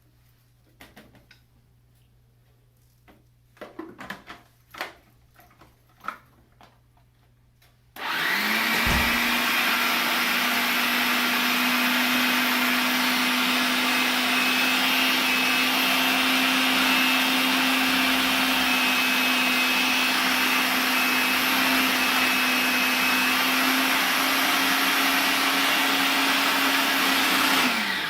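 A few light clicks and knocks, then about eight seconds in an electric blender switches on, spins up quickly and runs at a steady pitch for about twenty seconds, pureeing chickpeas, tahini and lime juice into hummus. The motor cuts off near the end.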